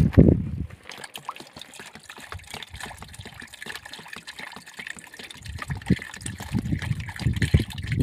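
Trickling water with a dense run of small clicks and splashes, and low thumps over the last few seconds.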